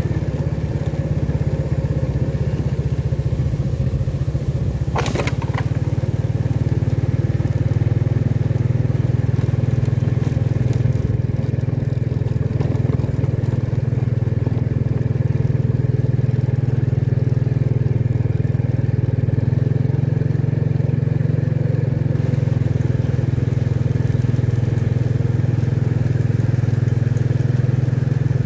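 Motorcycle engine running steadily at an even, low road speed, heard from on board, with a brief sharp higher sound about five seconds in.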